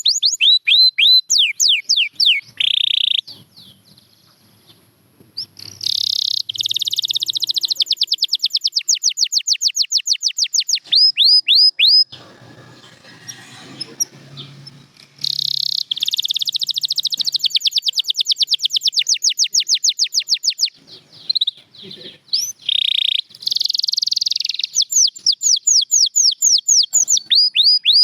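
Domestic canary singing: long, rapid trills of repeated falling whistled notes, broken by short pauses about four seconds and twelve seconds in.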